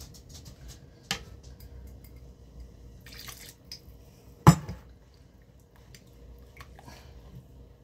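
Thick soup being stirred with a plastic spatula in an enamelled Dutch oven: wet squelching and dripping with small clicks. There is a sharp click about a second in, and a loud knock of the utensil against the pot about halfway through.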